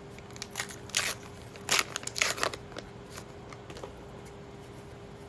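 Trading cards and their pack wrapping being handled, a few short crinkling rustles about a second in and again around two seconds, with light ticks of cards over a faint steady hum.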